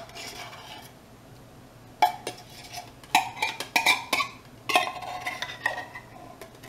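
Metal spoon clinking and scraping against a soup can and a stainless steel cooking pot while scooping out condensed soup. A quiet start, then scattered clinks beginning about two seconds in, with a busier run of them around the middle.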